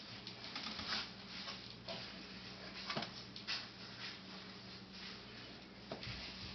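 Faint scattered taps and clicks as babies grab and push the plastic tray of a doorway baby jumper, over a low steady hum.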